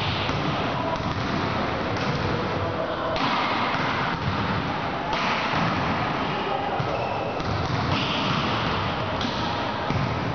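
Volleyballs being hit and bouncing on a sports hall floor during a defence drill, with voices in the echoing gym.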